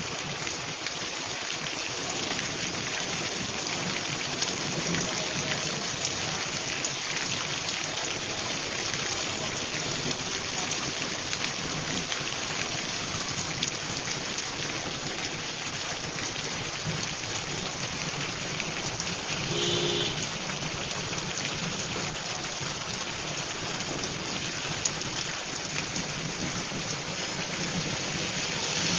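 Heavy rain pouring down onto a waterlogged paved road and ground, a steady, dense hiss of downpour. About two-thirds of the way through, a short higher note briefly sounds over it.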